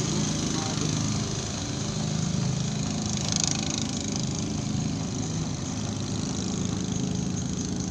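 A small engine running steadily, a low even drone, with a brief hiss about three and a half seconds in.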